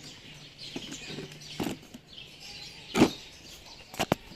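Sharp plastic clicks from a Nerf blaster being worked: a few separate clicks, the loudest about three seconds in, and a quick double click near the end.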